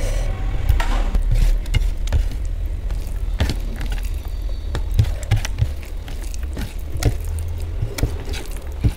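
Fingers mixing and squeezing fried rice into sticky Manchurian gravy on a steel plate, with scattered wet squishes and light clicks against the metal, over a steady low hum.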